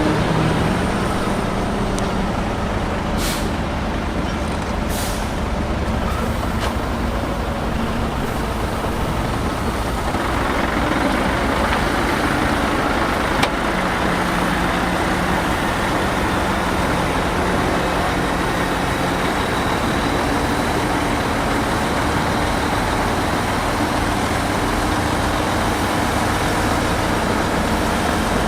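Heavy diesel engine of earthmoving equipment running steadily, with three short air hisses a few seconds in; the engine grows louder from about a third of the way through, as if working harder.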